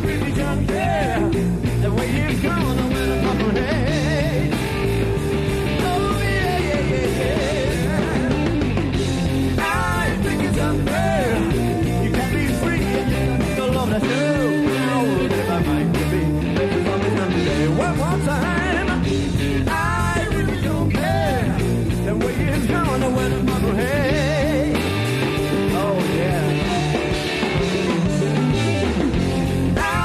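Blues-rock band playing: an electric guitar solo full of bent and wavering notes over bass and drums, taped off an FM radio broadcast onto cassette.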